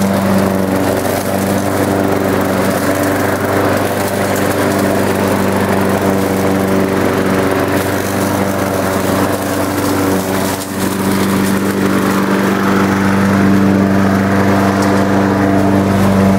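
Walk-behind lawn mower's small air-cooled single-cylinder engine running steadily at an even speed, with a brief dip a little past the middle.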